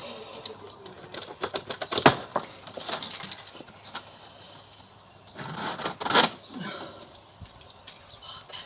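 A quick run of knocks and clicks with one sharp crack about two seconds in, then a short scraping rustle near six seconds, as a fridge freezer is handled through a doorway by delivery workers.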